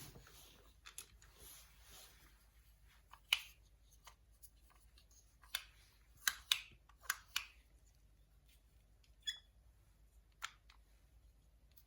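LEGO pieces being handled: scattered sharp plastic clicks and taps, the loudest about three and six seconds in.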